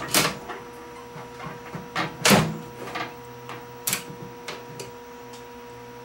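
Over-the-range Kenmore microwave door being eased open by its handle, with a few sharp clicks from the door latch and interlock switches, the loudest about two seconds in. A faint steady hum runs underneath.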